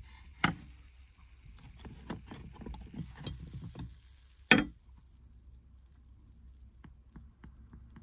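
Two sharp knocks, about four seconds apart, with lighter crackling and clicking between them and a few faint ticks afterwards.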